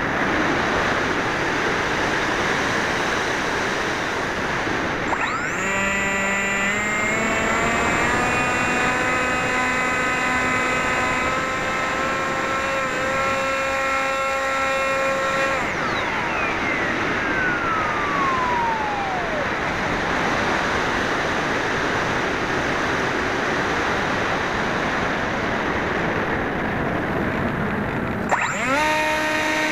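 Wind rushing over a HobbyKing Bixler foam RC plane in flight, heard through its onboard camera, with the electric pusher motor's whine coming in as the throttle opens about five seconds in. Around the middle the motor is cut and its pitch falls as it spins down, leaving only wind while the plane glides, until the motor spools up again near the end.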